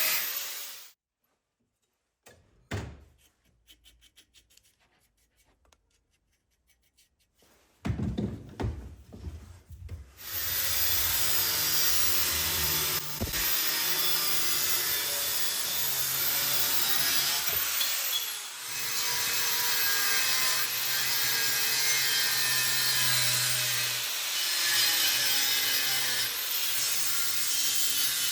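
Rasping of a tool cutting or working steel. It stops about a second in, leaving a near-silent stretch with a few clicks, and resumes steadily from about ten seconds in.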